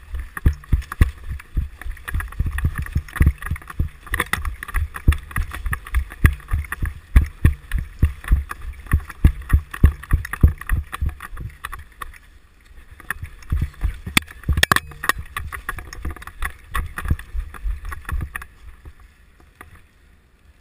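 Footsteps of a person running with a body-worn camera: heavy thumps about three a second, with the camera and gear jostling and wind on the microphone. The running stops briefly about twelve seconds in, starts again, and dies away near the end.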